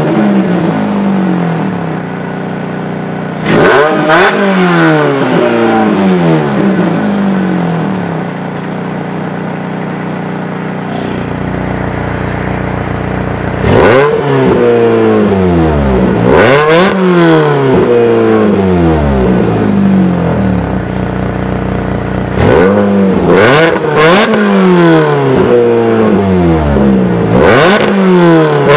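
Exhaust of a supercharged Z22SES 2.2-litre four-cylinder engine, fitted with an exhaust flap, being revved repeatedly while standing still. The pitch rises sharply with each blip and falls back to idle, settling at idle twice for a few seconds, about a third and about two-thirds of the way through.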